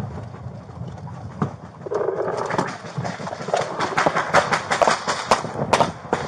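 Quick, irregular clacks and knocks as a deputy opens his patrol car door and climbs out, his gear rattling against the body camera.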